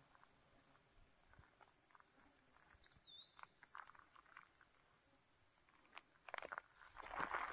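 Steady high-pitched chorus of meadow insects trilling without a break, with a short chirp about three seconds in. Faint rustling steps through the vegetation come in near the end.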